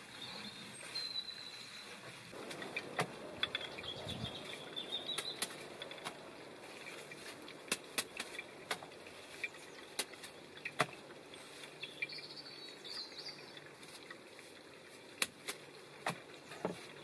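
Nettle leaves being picked off their stems by hand: a run of irregular sharp snaps and light rustling of foliage. A few faint bird chirps can be heard now and then.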